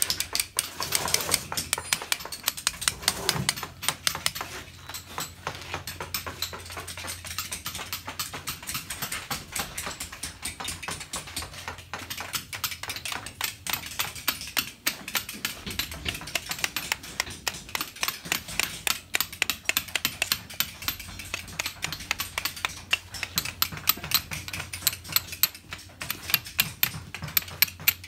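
Steel chisels struck with mallets on stone blocks, making a dense, continuous stream of sharp tapping that keeps up without a break.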